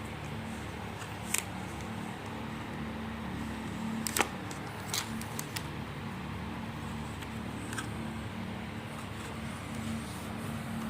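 A few sharp clicks and taps, the loudest about four seconds in and a quick cluster just after, over a steady low hum.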